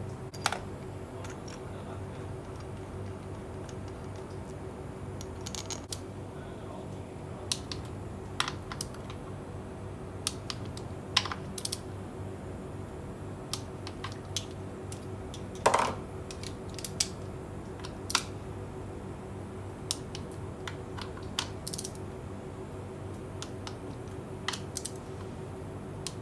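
Irregular sharp clicks and clinks of hand tools, a ratchet and torque wrench, working on the bolts of a 4L60E transmission valve body. Underneath runs a steady low hum.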